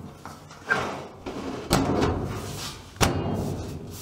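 Furnace filter access cover being fitted back into place: three knocks and rattles of the metal panel about a second apart.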